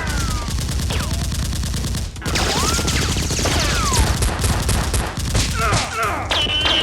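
Rapid automatic gunfire sound effects in continuous bursts, with a brief break about two seconds in. Near the end a high steady tone comes in.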